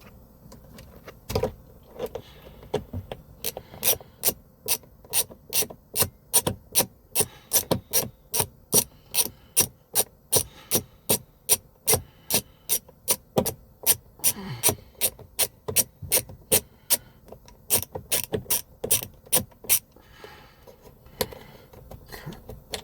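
Ratcheting screwdriver with a T10 Torx bit clicking as it backs out a small dashboard screw, a steady run of sharp clicks at about two to three a second that starts a few seconds in and stops near the end.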